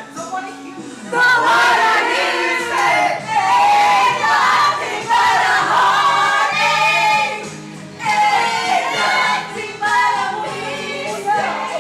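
A group singing a Christian worship song together, with held low notes from an instrumental accompaniment.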